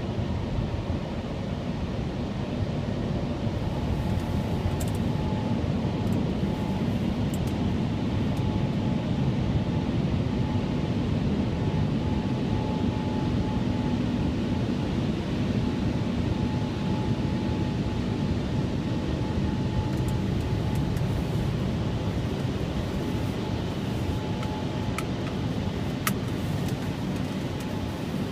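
Automatic car wash gantry machinery running, heard from inside the car: a steady low rumble with a faint steady whine, and a few light ticks near the end.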